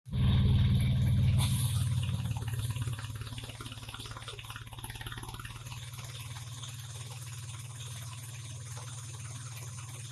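Wood crusher driven by a small single-cylinder diesel engine, running with a steady low pulsing hum. A branch is being fed in and chipped to sawdust, with a sharp crack about a second and a half in. The machine is loudest for the first three seconds, then settles to an even running sound.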